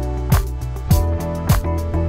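Background music with a steady drum beat, about one beat every 0.6 seconds, over sustained tones.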